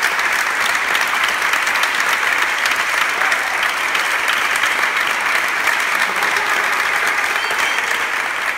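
A large group of people clapping their hands together: a dense, steady patter of many hands.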